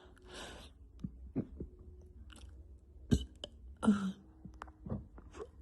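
A woman's quiet mouth and throat noises: scattered clicks and smacks, a short breath, and a brief throaty sound about four seconds in.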